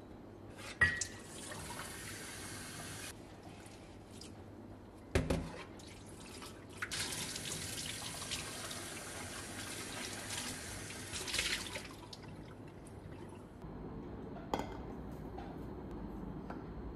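Kitchen tap running into a stainless steel sink as cups are rinsed under it: the water runs for about two seconds early on, stops, then runs again for about five seconds. Sharp knocks of cups and hands against the sink come in between, one about five seconds in and another near the end.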